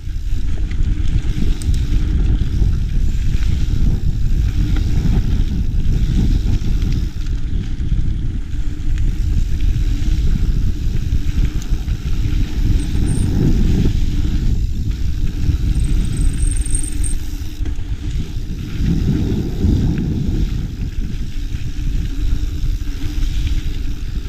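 Mountain bike riding along a dirt trail, heard as a loud, steady low rumble of tyres and bumps on a bike-mounted camera. A short high brake squeak sounds about halfway through, and again for about a second a few seconds later.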